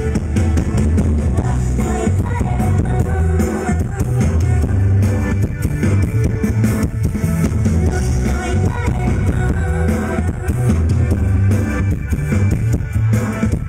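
Band music played loud through a big concert sound system, with a heavy, steady bass-and-drum beat that kicks in fully right at the start. It is recorded on a mobile phone.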